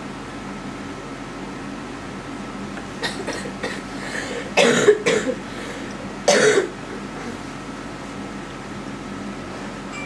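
A person coughing twice in the middle, each cough about half a second long, with a few smaller throat sounds just before, over a steady low room hum.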